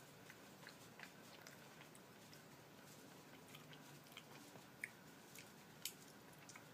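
Faint chewing of food, with scattered small mouth clicks and two sharper clicks near the end.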